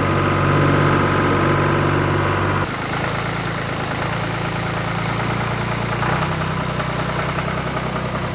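Tractor engine idling sound, a steady low drone. About two and a half seconds in it switches abruptly to a different, slightly quieter idle pattern.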